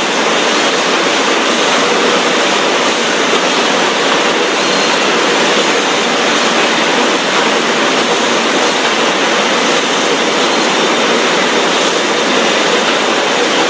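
Steady loud running noise of food-processing factory machinery, with a faint regular clicking.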